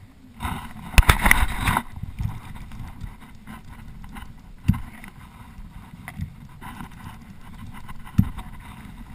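Wind and water noise around a fishing kayak while a fish is played on a rod and reel, with a loud scuffing burst about a second in and two dull knocks, one near the middle and one near the end.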